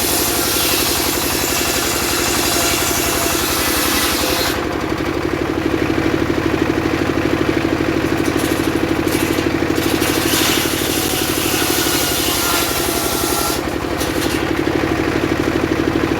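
Engine-driven circular saw cutting sengon wood. The engine runs steadily with a fast, even pulse, while the blade's hissing cut through the wood comes and goes: loud for about the first four seconds, briefly again a little later, and again for a few seconds past the middle.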